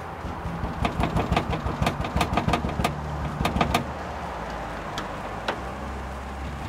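Metal tool clicking against the power antenna's mounting hardware in a car body panel as it is loosened by hand: a quick, irregular run of sharp clicks for a few seconds, then two single clicks. A low steady hum lies underneath.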